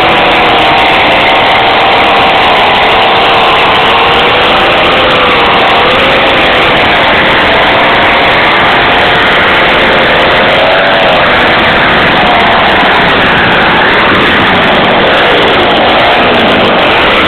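Two-stroke chainsaw engine driving a homemade snowblower, running steadily, its pitch wandering up and down.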